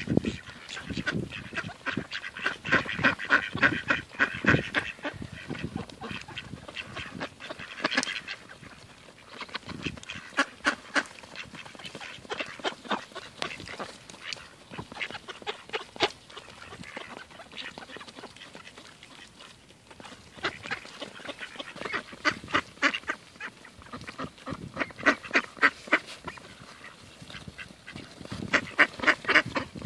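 A flock of mallards quacking in bursts of quick, short calls while they feed, with quieter spells between the bursts.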